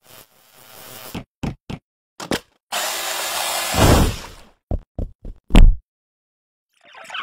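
Effect-processed cartoon sound effects: a short noisy buzz, a few sharp knocks, then a loud blender whirring for about a second and a half, followed by several short heavy knocks.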